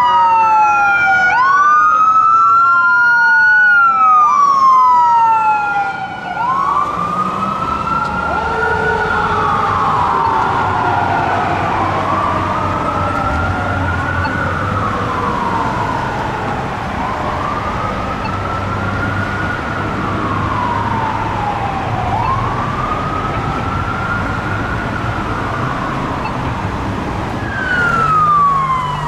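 Fire engine sirens wailing on an emergency run. The pitch rises and falls every few seconds, quicker and doubled at first, then slower and steady. A low engine rumble runs underneath, and near the end a faster-sweeping siren cuts in.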